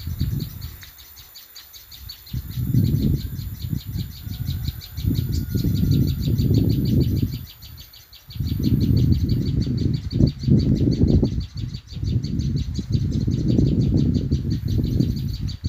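A prinia near its nest calling in a rapid, steady series of high ticking notes. Loud, gusty low rumbling on the microphone rises and falls over it.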